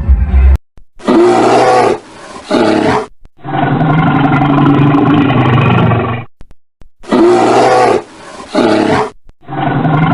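A large animal roaring: two short roars, then one long drawn-out roar of about three seconds. The same sequence plays again about seven seconds in.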